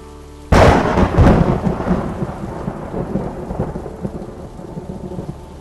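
A thunderclap over steady heavy rain: a sudden loud crack about half a second in, rolling off into a long fading rumble.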